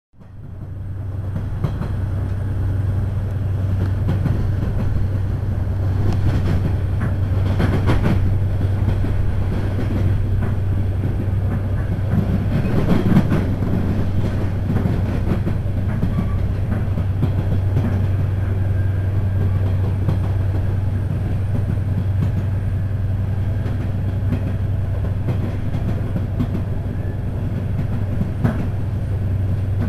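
Passenger train running at speed, heard from inside the carriage: a steady low hum under wheel-and-track noise, with a few louder clatters along the way.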